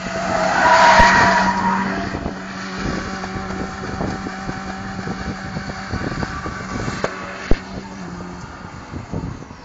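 Pickup truck spinning donuts, its tyres squealing loudly about a second in, with the engine held at a steady high pitch through the skid until it drops away near the end. A single sharp knock sounds late on.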